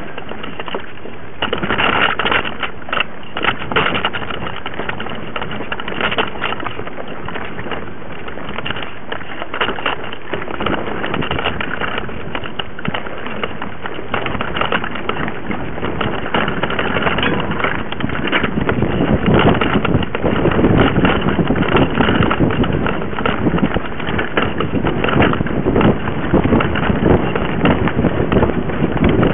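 Mountain bike riding over a dirt forest trail, heard from a camera mounted on the bike: a continuous rattle of tyres on dirt and parts shaking, mixed with wind on the microphone. It gets louder and rougher about two-thirds of the way through.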